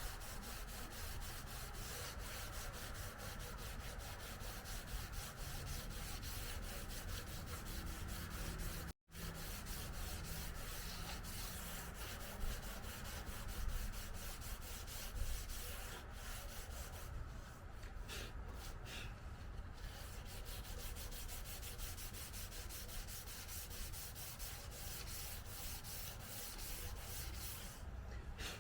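Sandpaper being rubbed by hand over a car's body panel in quick, steady back-and-forth strokes, smoothing the quarter panel. The sound cuts out for an instant about nine seconds in.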